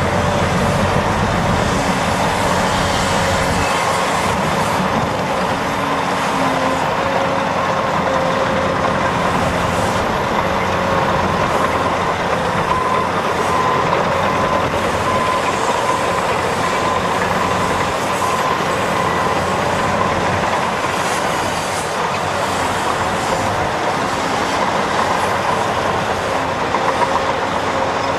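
Caterpillar 385C LME hydraulic excavator's diesel engine and hydraulics working steadily through a dig-and-load cycle, with a Caterpillar 769D dump truck's engine idling alongside. A steady whine sits over the engine noise.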